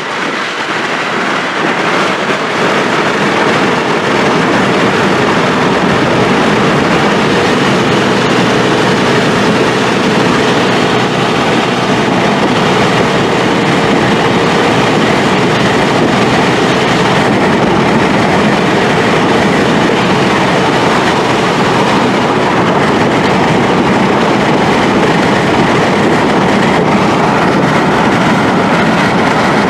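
Loud, steady engine, exhaust and road noise of a 2009 Nissan Frontier at highway speed, heard from inside the cab. The oxygen sensor is out of the exhaust, a test for back pressure from a suspected clogged catalytic converter.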